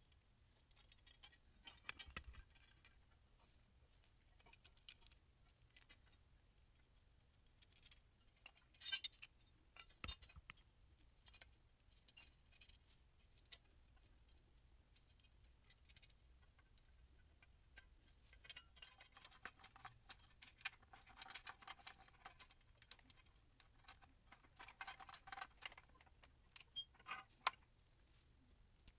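Faint, scattered clicks, clinks and rustles of an LED flood light and its parts being handled and unpacked. There are two stretches of denser rattling about two-thirds of the way through, and a sharp click near the end.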